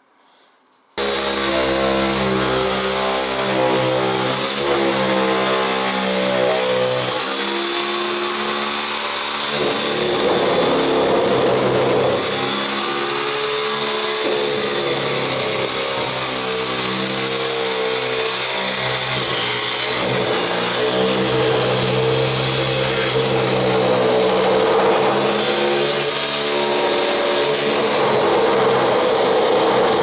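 A motor running steadily and loudly, starting abruptly about a second in, its pitch shifting several times.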